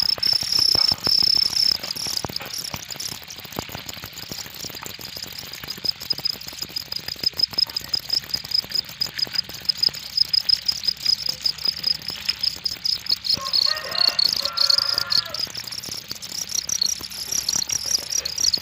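Crickets chirping in a steady, rapidly pulsing high trill. Around two-thirds of the way through, a brief pitched call of a few repeated notes sounds over it.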